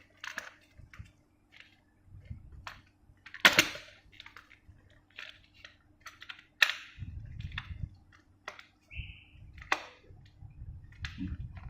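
Plastic clicks and knocks from handling a Dyson V10 cordless vacuum while working its dust bin release to take the bin off, which doesn't come free. The sharpest click comes about three and a half seconds in, and a brief high tone sounds about nine seconds in.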